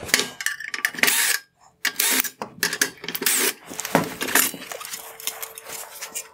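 Cordless drill running in a series of short bursts, backing out the Torx T20 screws that hold the headlight's front bezel, with sharp clicks and plastic knocks between the bursts.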